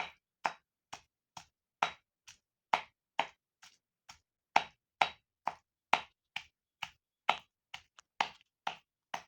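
Chicken meat being pounded by hand into a paste for rista: a steady run of dull strikes, a little over two a second.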